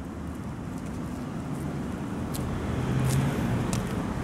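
Road traffic noise with a car passing, swelling to its loudest about three seconds in.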